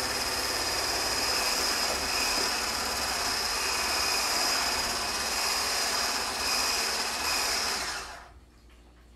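Handheld immersion blender running steadily with a high whine as it whips cream to peaks in a measuring cup. It switches off about eight seconds in, once the cream is whipped.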